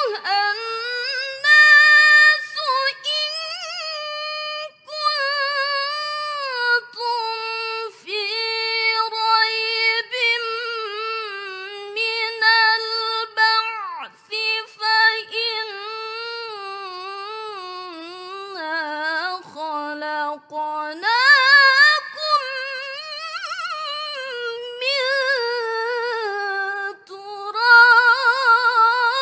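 A teenage girl's solo Quran recitation in the melodic tilawah (mujawwad) style: long drawn-out melismatic phrases with quavering ornaments, the pitch sinking and then climbing sharply about two-thirds of the way through. She breaks off briefly for breath twice, about five seconds in and near the end.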